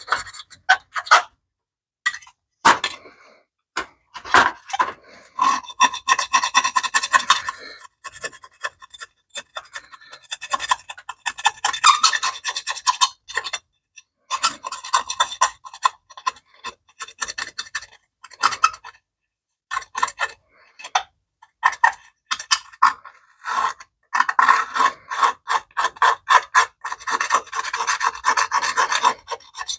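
Hand scraper scraping caked grime off a BMW E30's aluminium exhaust heat shield: runs of rapid, scratchy strokes of metal on metal, broken by short pauses.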